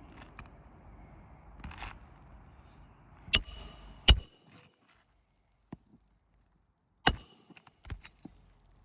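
Hammer blows on a steel roof snake, driving roofing nails under the shingles: four sharp metallic strikes in two pairs, the first three ringing briefly, with a few light taps between them.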